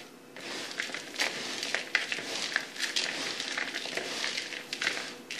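Hands tossing and mixing dry muesli of oat and rye flakes in a white plastic bowl: a continuous dry rustling of flakes with small crackles and clicks. It fades shortly before the end.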